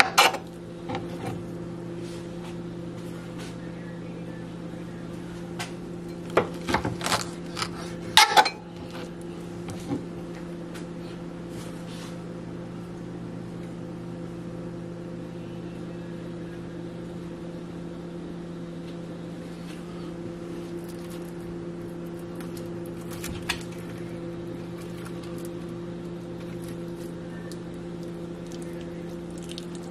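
A steady low hum from a kitchen appliance, with scattered kitchen knocks and clatter over it: a knife on a plastic cutting board at the start, and a loud cluster of knocks about seven to eight seconds in.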